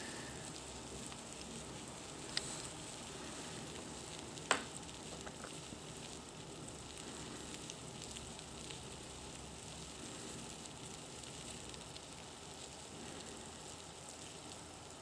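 Faint, steady crackly rustling of superworm (Zophobas) larvae crawling and burrowing through dry wood shavings in a plastic tub. Two short sharp clicks sound about two and four and a half seconds in.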